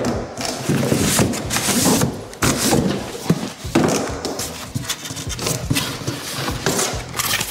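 Cardboard packing and a cardboard shipping box being handled: an irregular run of scraping, rustling and knocking as the pieces are shifted and pulled out.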